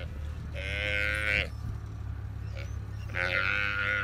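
An African buffalo calf bawling in distress while wild dogs bite it: two long drawn-out bellows, one about half a second in and another from about three seconds in, over a steady low hum.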